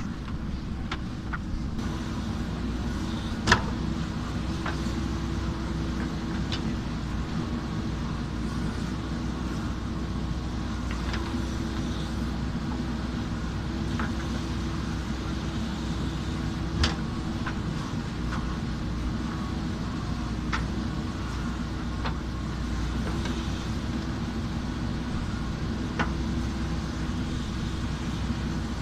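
JCB backhoe loader's diesel engine running steadily while working, with a few sharp knocks over it, the loudest about three and a half seconds in.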